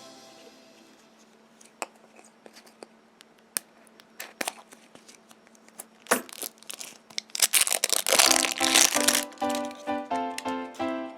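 Clicks and crinkling of a surprise egg's wrapper being handled and torn open, thickening into a dense burst of crinkling about eight seconds in. Background music fades out at the start and comes back near the end.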